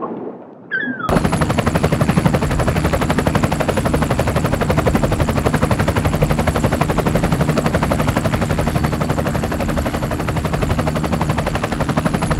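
Helicopter running: rapid, steady chopping of the rotor blades with a thin high whine above it, starting abruptly about a second in.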